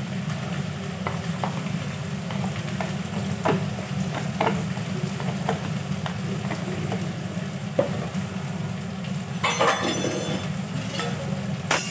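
Cucumber and yardlong bean pieces frying in oil in an aluminium kadai, with scattered small crackles and ticks over a steady low hum. A brief louder scrape or clatter comes about nine and a half seconds in.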